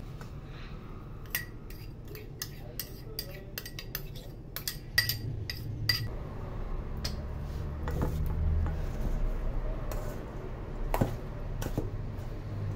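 Kitchen utensils clinking and scraping against a stainless steel mixing bowl as ingredients are added and stirred in. A run of quick light ticks comes in the first half, and two sharper clinks come near the end.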